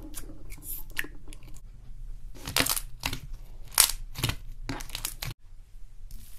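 Foam-bead slime (floam) crackling as fingers poke into it, then a run of loud crunches as a fist squeezes a lump of it. The sound cuts off suddenly a little past five seconds.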